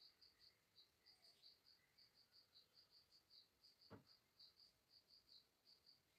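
Faint insect chirping: short, high chirps repeating about five times a second. A single soft click comes about four seconds in.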